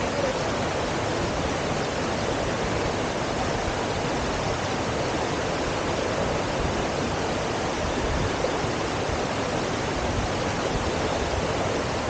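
Shallow rocky stream rushing steadily, heard from just above the water: an even, unbroken wash of flowing-water noise.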